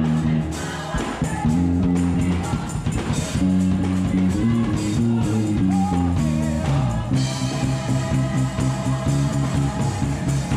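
Headless electric bass guitar played through a bass amp, in a steady line of low notes, along with gospel music that has singing and drums.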